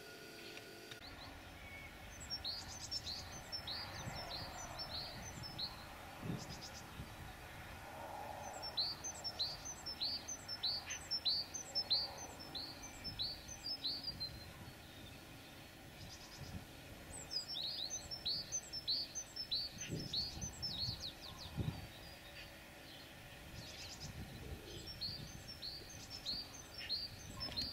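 A songbird singing four phrases, each a quick run of about eight to ten high, falling notes, with pauses of a few seconds between them. A few low thumps sound in between.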